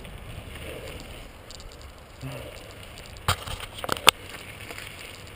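Bicycle tyres rolling over a gravel-covered dirt pump track, a steady rough hiss, with one sharp knock a little past the middle and a quick cluster of knocks and rattles about a second later as the bike goes over the rollers.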